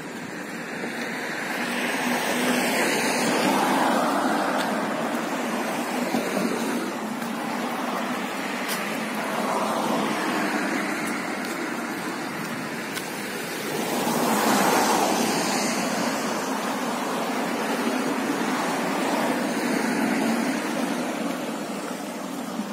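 Street traffic: cars passing one after another, each swelling up and fading away, the loudest about fourteen seconds in.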